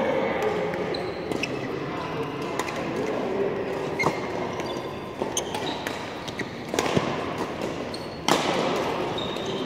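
Badminton rally in a large hall: sharp cracks of rackets hitting the shuttlecock, the loudest about eight seconds in, with short squeaks of shoes on the court mat over a steady hall din.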